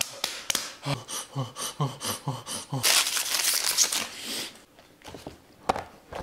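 Short repeated vocal sounds, then about three seconds in a loud crinkling for about a second and a half, like the foil wrapper of a Paqui One Chip Challenge chip being handled.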